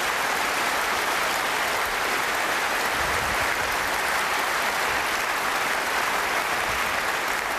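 Large audience applauding steadily, a dense even clatter of many hands clapping at once.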